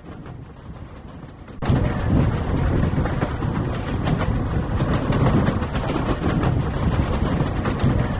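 Train running along the track: a loud, dense rumble with rapid rattling that starts suddenly about a second and a half in, after a quieter stretch of background noise.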